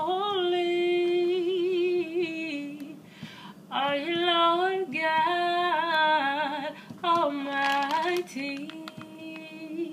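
A woman singing a gospel song unaccompanied, holding long notes with vibrato in several phrases separated by short breaths.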